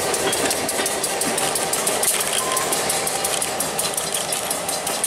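Diesel-electric freight locomotive's engine running as it passes close by, with a steady rapid throb.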